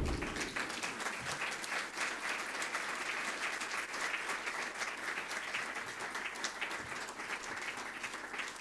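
Audience applauding: many hands clapping in a steady patter that eases off a little near the end.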